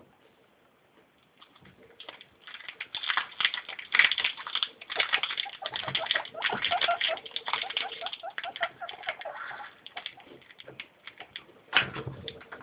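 Guinea pigs crunching dry oat-and-pellet food mix: dense, rapid crackling chewing that starts about two seconds in and eases off near ten seconds. A single sharp thump comes near the end.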